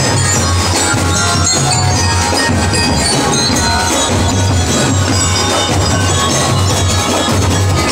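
High school marching band playing at full volume: drums beating steadily under a bright melody of high, pitched tones.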